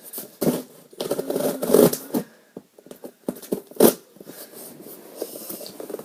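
Cardboard shipping box being handled and opened: irregular scraping and rustling, with one sharp knock about four seconds in.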